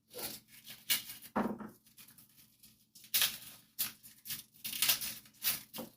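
Hands pulling cloves off a garlic bulb: its papery skin rustles and tears in short, irregular bursts, with a few light ticks.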